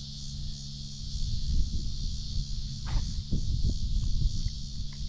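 Steady high-pitched insect chorus, with low rumbling and thumps from about a second in and a sharp click about three seconds in.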